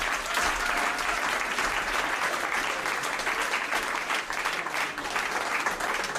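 Live studio audience applauding at a steady level as a performer is welcomed on stage.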